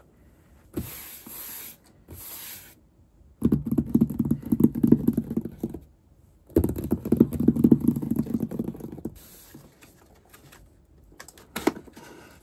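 Fingertips tapping and scratching rapidly on a cardboard box lid, in two bursts of a few seconds each. A sharp click near the end as the box's flap is pulled at.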